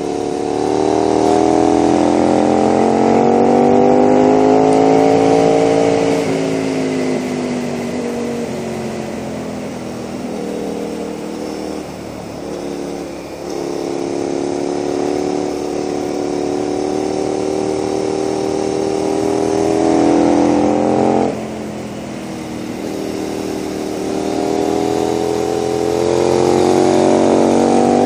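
KTM 990 SMR supermoto's V-twin running through a Leo Vince aftermarket exhaust under riding load, with wind noise. The revs climb for several seconds, drop off sharply about six seconds in and again about twenty-one seconds in, then climb again near the end.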